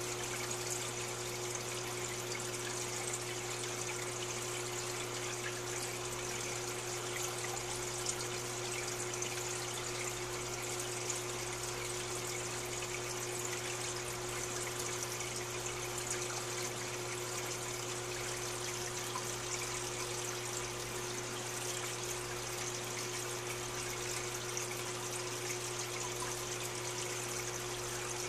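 Aquarium filter running: a steady trickle of water with a constant low electric hum.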